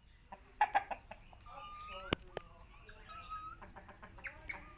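Animal calls: short high chirps and a drawn-out whistled note, with a sharp knock a little after two seconds in.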